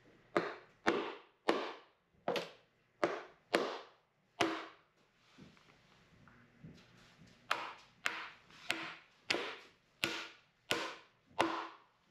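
Hand hammer driving nails into a light lumber wall frame: sharp ringing blows about two a second, a run of about seven, a pause of a few seconds, then about eight more.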